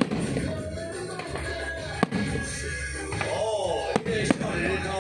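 Music with singing, cut through by a few sharp bangs of aerial fireworks bursting, near the start, about two seconds in and about four seconds in.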